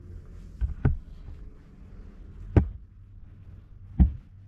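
Four dull thumps, two close together about a second in, one past the middle and one near the end, over a low steady hum.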